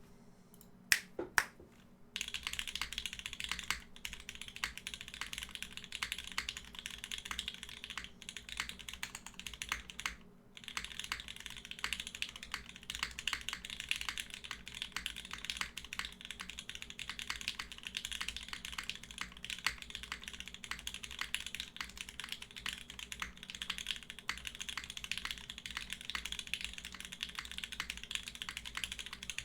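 Typing on a Geonworks F1-8x mechanical keyboard with lubed and filmed Parallel Limited Pewter tactile switches, an aluminium leaf-spring plate and GMK Ursa keycaps. A fast, steady stream of clacky keystrokes starts about two seconds in and pauses briefly about ten seconds in. It is preceded by two sharp, loud knocks about a second in.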